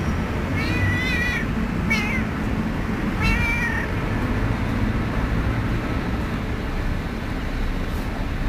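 Domestic cat meowing three times, about a second apart, each call wavering in pitch, over a steady low background rumble.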